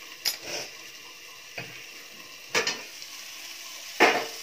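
A handful of sharp clinks and knocks of kitchen utensils and dishes being handled, the loudest near the end. Under them runs a faint steady sizzle of masala frying in a kadai.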